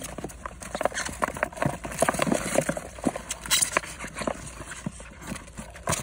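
Live crabs clattering in a polystyrene cooler as its lid is handled: rapid, irregular clicks and knocks of shells and claws against each other and the foam box.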